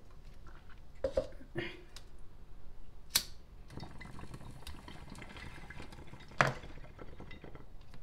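A cup set down with a knock, then a lighter flicked about three seconds in and a glass water bong bubbling steadily as smoke is drawn through the water, with one loud sharp click near the end.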